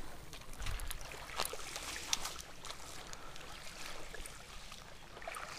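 Shallow seawater lapping and trickling with irregular small splashes, and wind rumbling on the microphone now and then, strongest about a second in.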